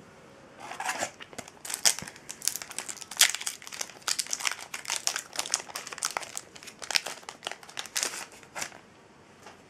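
A Yu-Gi-Oh booster pack's foil wrapper being torn open and crinkled by hand: a dense run of sharp crackles that stops near the end.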